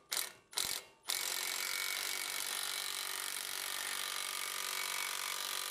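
Impact wrench on the seized 17 mm ball-joint pinch bolt of a Nissan Titan's steering knuckle: two short trigger blips, then running steadily from about a second in without freeing the bolt. The sound is the tool complaining, which the owner puts down to it being on the wrong setting.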